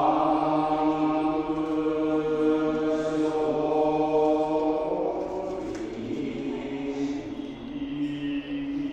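Buddhist monks chanting together, holding long, steady notes over a low drone. The held note fades about six seconds in and a new one begins shortly after.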